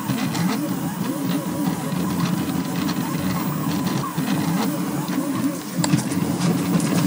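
Delta 3D printer running a fast print, its stepper motors singing in pitches that sweep rapidly up and down as the effector darts between moves, over a faint steady high tone and scattered light clicks.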